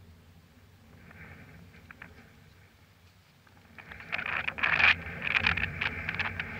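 Wind on the microphone: a faint rumble at first, then rough, gusty buffeting from about four seconds in.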